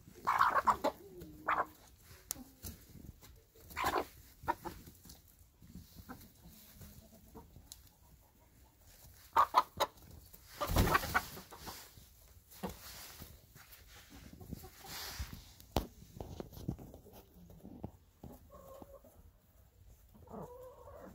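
Chickens clucking in short scattered calls while they peck at a piece of bread, with a sharp knock about halfway through. Near the end a longer, drawn-out call begins.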